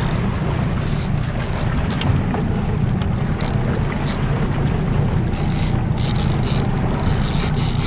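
Outboard motor running at low speed, a steady low hum, with wind on the microphone and water rushing past the hull.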